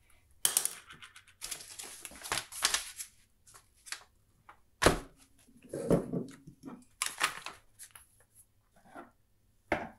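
A brown paper bag rustles as it is spread flat on a workbench, and PVC pipe fittings are set down on it with several sharp knocks. The loudest knocks come about five and six seconds in.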